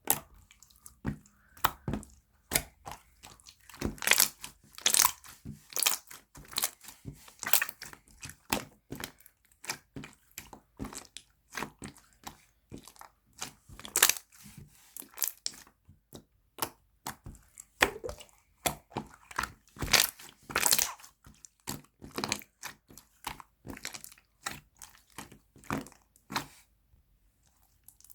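Clear jelly being crunched: an irregular run of crisp crackles and clicks, some louder than others, thinning out near the end.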